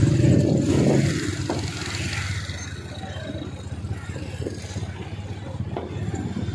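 Road traffic: motorcycle and car engines running and passing close by, loudest in the first second and then a steadier rumble.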